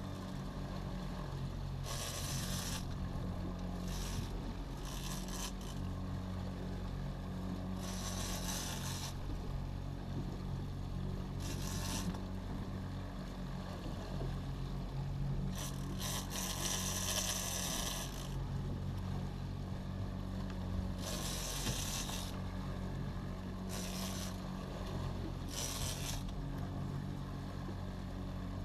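Boat outboard motor running steadily at low speed, with short bursts of high hiss every few seconds.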